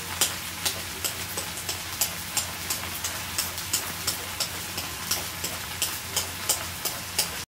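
Butter and garlic sizzling steadily in an electric skillet, with quick sharp ticks about two or three times a second as a zucchini is shaved into ribbons with a vegetable peeler over the pan. The sound cuts off suddenly near the end.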